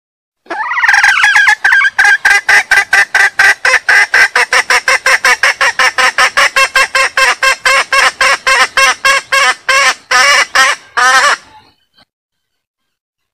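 Female junglefowl in breeding condition calling for a cock: a longer opening call, then a fast, even run of short cackling notes, about five a second, that stops abruptly near the end.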